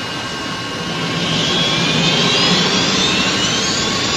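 Jet airliner engines running up, a rising whine over a steady rumble that grows louder about a second in, as the plane is throttled up for its takeoff roll.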